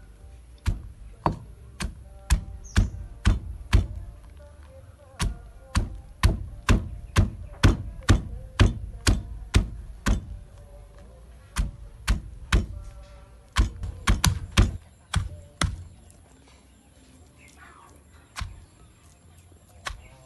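Stone pestle pounding young tamarind pods in a stone mortar: a run of sharp thuds about two a second, with short pauses, thinning out after about fifteen seconds.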